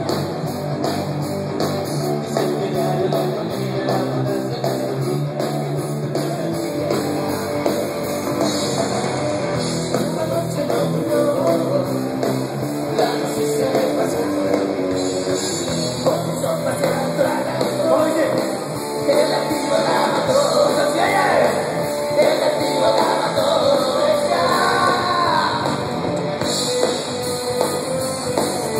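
Live rock band playing loud amplified music through a PA: electric guitars and drums, with a singer's voice coming in strongly past the middle.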